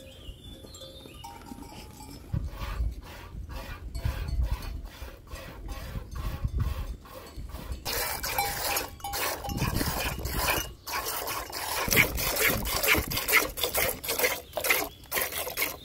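A goat being milked by hand into a metal pot: rhythmic squirts of milk, about three a second, that grow louder about eight seconds in.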